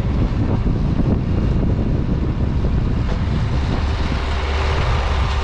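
Tractor engine running steadily with a low drone and some mechanical rattle, wind buffeting the microphone.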